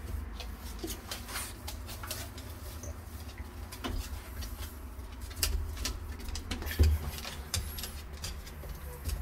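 Newborn French bulldog puppies squeaking and making small cooing grunts, over scattered soft clicks.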